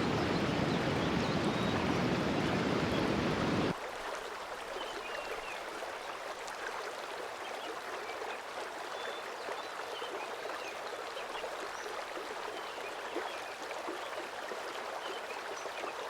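Mountain stream water rushing. About four seconds in, it cuts off abruptly to a quieter, thinner flow of water with faint high chirps scattered over it.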